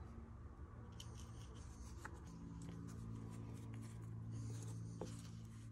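Faint rubbing, scratching and light clicks of hands handling a small pocket knife and a plastic glue bottle, over a steady low hum.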